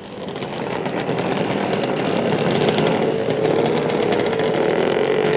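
A motor running, growing louder over the first couple of seconds and then holding steady, its pitch creeping slowly upward.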